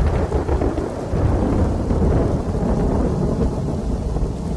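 Heavy rainstorm noise: steady rain with a deep, continuous low rumble like thunder.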